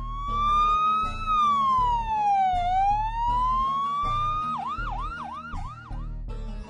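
A siren, as in a police-car sound effect: one slow wail that rises, falls and rises again, then switches to about five quick yelps in the last couple of seconds. Background music with a steady low beat runs underneath.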